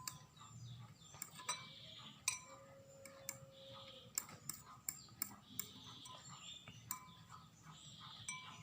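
A fork stirring a sticky glue-and-detergent slime mixture in a container: uneven clicks and taps of the fork against the container with soft squishy scraping between them, as the mixture is worked into a clump.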